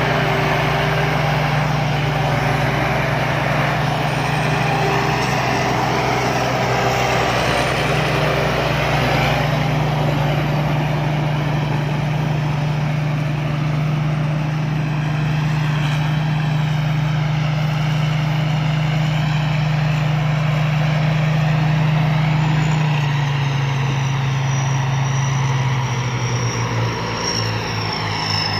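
Rice combine harvester's engine running steadily under load, a strong even hum. About three-quarters of the way through, the engine note drops and wavers, and a faint high whine slides slowly down in pitch.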